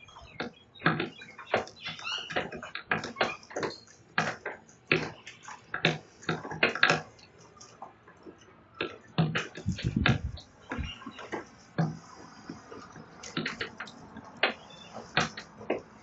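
Sulphur-crested cockatoo chewing the verandah's balcony rail with its beak: irregular sharp cracks and crunches, several a second, with a brief low rumble about ten seconds in.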